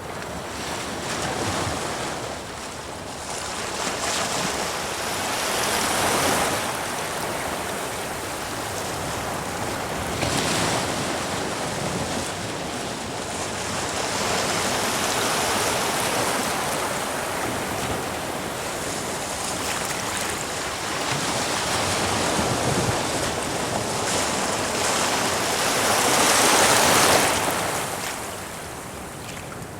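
Ocean waves surging and breaking against rocks, a continuous wash of surf and foam with swells every few seconds, the biggest wave breaking near the end.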